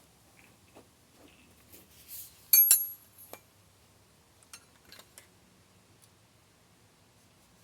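Metal tools and parts clinking and knocking: scattered light clicks, then one loud ringing metallic clink about two and a half seconds in, followed by a few more small clicks.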